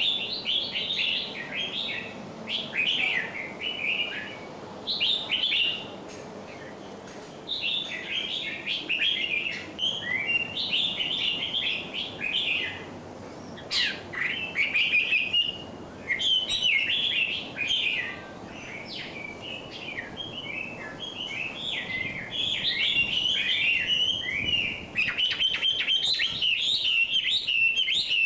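Small songbirds chirping and singing in rapid bursts of short, high, twittering notes, near-continuous with brief pauses, busiest near the end.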